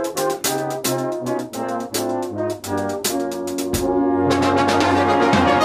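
Brass band with percussion playing a fast run of short, punchy chords with cymbal and drum hits, then holding a long chord from about four seconds in.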